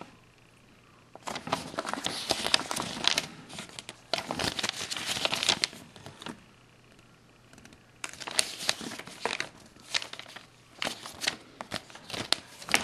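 Crinkling of LEGO set packaging being handled, in irregular bursts with short pauses between.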